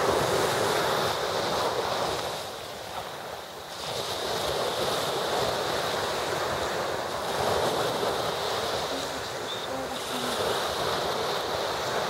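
Sea waves washing, the surf swelling and easing; it dips for a moment about three seconds in and builds again.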